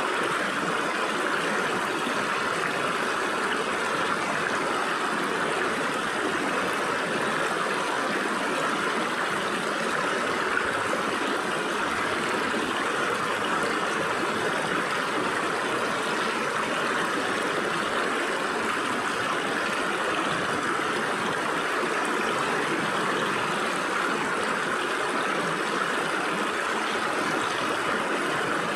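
Stream water flowing and splashing between rocks: a steady, even rush.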